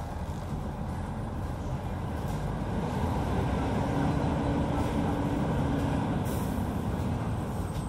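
2006 Hyundai Aero City 540 city bus engine heard from inside the passenger cabin, pulling louder for a few seconds with a steady whine over it, then easing off. A short hiss of air comes near the end.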